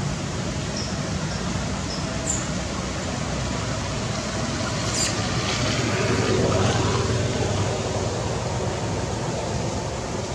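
Steady outdoor background noise, a low rumble with hiss, that swells a little about six seconds in, with a brief sharp tick about five seconds in.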